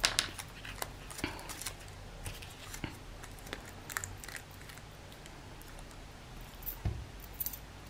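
Paper and craft materials being handled on a desk: scattered small clicks and light rustles, with a soft knock about seven seconds in.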